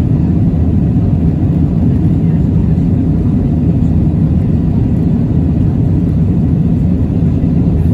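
Steady low rumble of an Airbus A320-family jet airliner, engines and airflow, heard from inside the cabin.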